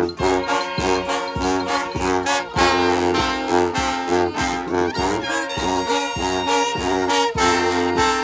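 Street brass band playing live: horns (trombones, trumpets and saxophones) holding and moving through chords over a low bass line that pulses in a steady beat of about two notes a second.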